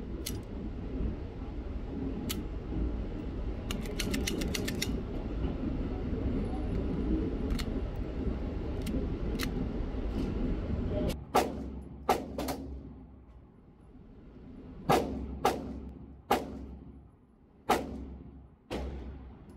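Hi-Point CF380 .380 pistol firing about eight unevenly spaced shots on an indoor range, each with a short echo. The shots start about halfway through, after a stretch of steady rumble and faint clicks. The gaps in the firing fit the malfunctions and failure to eject that the pistol is having with this ammunition.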